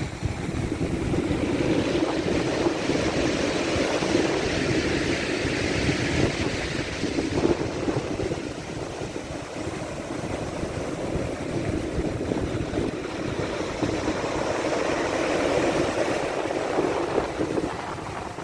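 Black Sea waves washing in, swelling and easing over several seconds, with wind buffeting the microphone.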